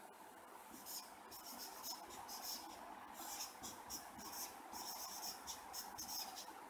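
Felt-tip marker writing on a whiteboard: faint, short scratchy strokes of the tip on the board, coming in quick irregular runs with brief gaps.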